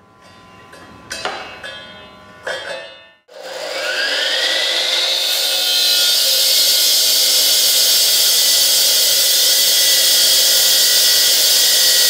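A few light clicks and rattles as a dust skid is clamped onto an AGP C14 electric concrete saw. The saw's 2800 W motor then starts, its whine rising as the 355 mm blade spins up. It runs steadily and loudly while dry-cutting a concrete slab.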